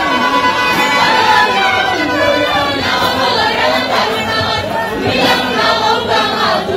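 Group of Turkana women singing a traditional song together, many voices at once, with crowd noise underneath.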